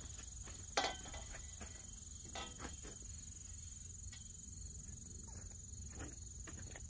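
A steel hoop-house pole, galvanized chain-link top rail, knocks once with a sharp metallic clank and a brief ring about a second in, then gives a couple of softer knocks and light scuffs as it is lifted into place. A steady high-pitched insect drone runs underneath.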